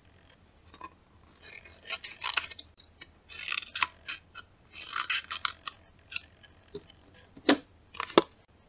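Scissors snipping through a thin paper plate in several short runs of cuts, then two sharper clicks near the end.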